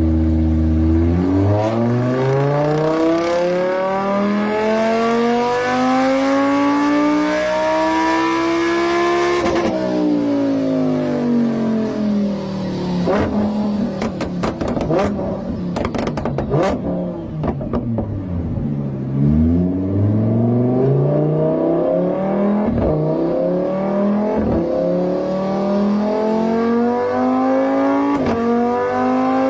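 Car engine sound effect revving. The pitch climbs steadily for about nine seconds, then falls away through a stretch of crackles and clicks to a low point. It then climbs steadily again toward the end.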